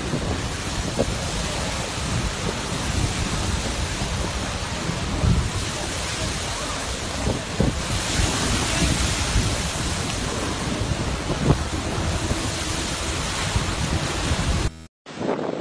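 Molten lava pouring into the sea: a steady dense hiss of boiling seawater and steam mixed with surf, broken by scattered low pops and thuds. Near the end it cuts out for a moment and gives way to wind buffeting the microphone.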